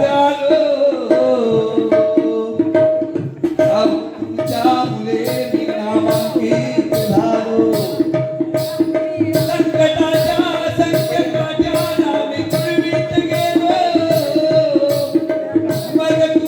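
Jakhadi folk music: a hand drum beating a steady rhythm, about two strokes a second from about four seconds in, under sustained melodic instrument tones.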